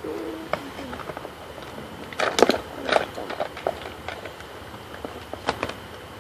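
Hands handling a cardboard box and the items inside it: scattered knocks, scrapes and rustles, loudest a little after two and three seconds in. A brief low murmur of a voice near the start.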